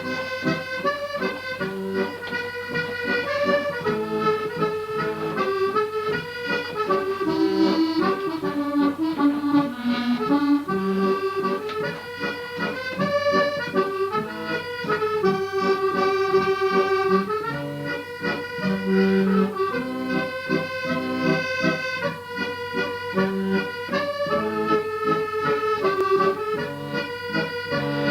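Accordion playing a traditional-style tune in a medley: a melody of held and stepping notes over a steady rhythmic bass-and-chord accompaniment.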